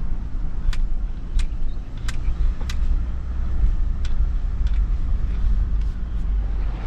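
Steady low rumble of a moving vehicle, with sharp clicks about two-thirds of a second apart for much of the time.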